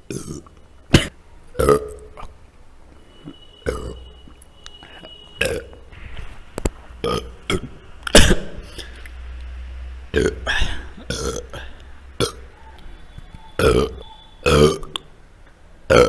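A run of men's burps, about a dozen short, loud belches one after another, each a second or two apart.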